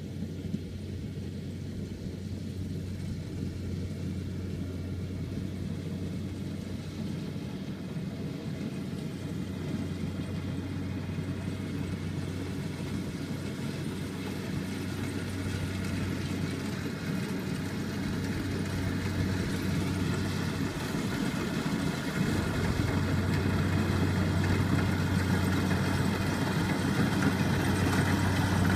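Rice combine harvester running steadily while it harvests, a continuous engine hum with a faint high whine above it, growing steadily louder as the machine draws near.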